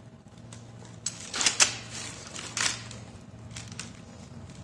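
Cutting pliers biting into and scraping the plastic insulation off a thin electrical wire as it is stripped. There are a few short clicks and scrapes, the loudest about a second and a half in, over a faint low steady hum.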